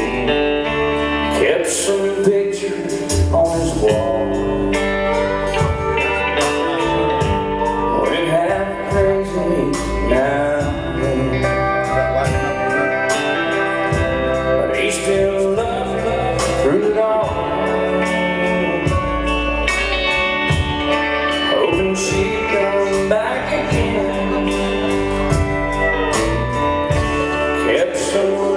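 Live country band playing a slow ballad: acoustic and electric guitars, bass, drums and pedal steel guitar, with a male lead vocal over it.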